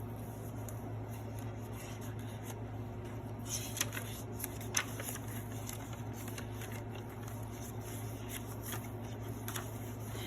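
Faint rustling and a few soft taps of paper and card being handled as the handmade journal's pages and tucked-in cards are turned, over a steady low hum.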